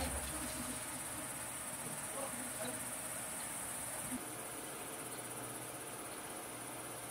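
Insects chirping in a steady, high-pitched chorus, a little quieter after about four seconds.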